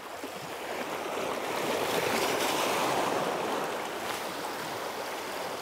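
Small sea waves washing over a rocky shoreline: a steady rush that swells about two seconds in and slowly eases.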